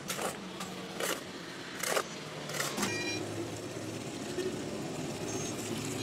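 A steel shovel scrapes into a pile of gravel and cement mix in four sharp strokes over the first three seconds. After that a thin stream of water runs steadily into a hollow in the mix.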